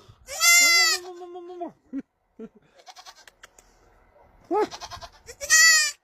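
A farm animal bleating: two loud calls, one about half a second in and another near the end. The first trails off into a lower held note.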